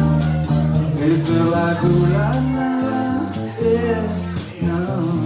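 Live band playing: electric guitar and bass guitar over drums with a steady cymbal beat, and a voice singing into the microphones.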